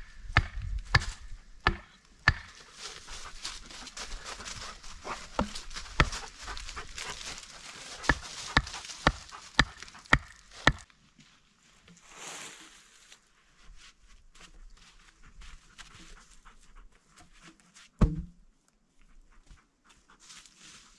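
A run of sharp knocks and strikes, irregular and at times less than a second apart, which stops about halfway through. After that come quiet rustling and one heavy thump later on.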